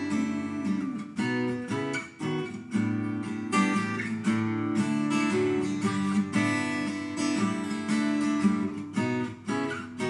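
Twelve-string acoustic guitar played solo, picked and strummed chords with a melody line running through them.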